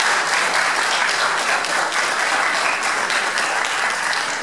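An audience applauding with steady, dense clapping.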